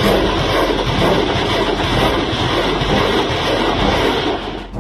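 A loud, steady rushing roar with no separate blasts or shots in it, fading away at the end.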